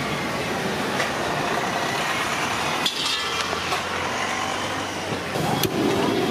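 Steady roadside street noise with traffic running, broken by a few sharp clicks and knocks.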